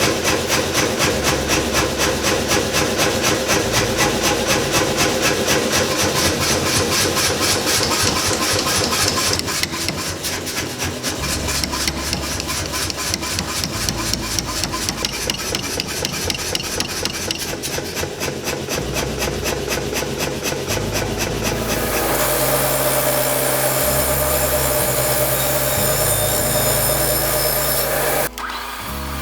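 Power hammer striking hot steel in rapid, even blows, several a second, as the spring swage is forged; the rhythm changes near the end.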